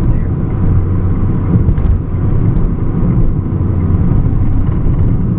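Fiat 500 Abarth heard from inside the cabin while driven on a track: a loud, steady low rumble of engine and road noise, with no clear engine note standing out.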